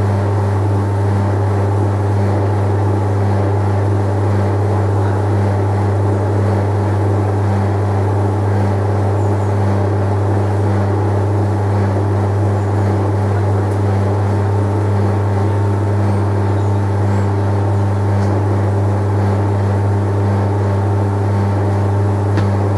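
Hoover De Luxe dryer running steadily at the start of a drying cycle: a constant, loud motor hum with a faint tick near the end.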